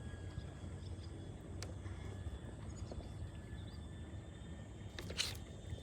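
Outdoor ambience: a steady low rumble with thin, steady high insect tones over it, and one brief sharp noise about five seconds in.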